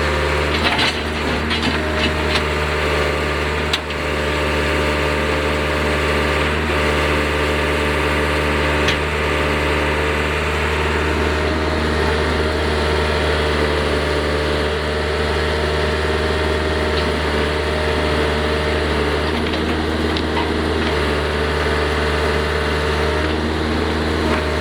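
John Deere 310C backhoe's diesel engine running steadily, with a few sharp knocks and cracks in the first few seconds.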